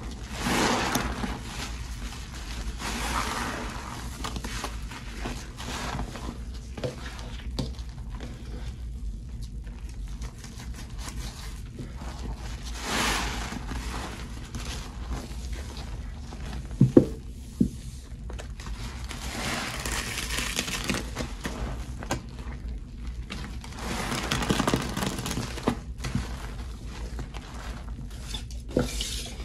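A frothy cleaning-product mixture of Pine-Sol, Lestoil and Murphy's Oil Soap sloshing and splashing in a container, in several swells lasting a second or two each. A couple of sharp knocks come just past the middle, over a steady low hum.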